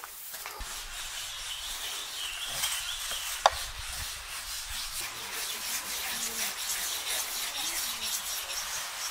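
Metal blade scraping and chipping a soft stone block as it is carved into a stove, in repeated rasping strokes, with one sharp knock about three and a half seconds in.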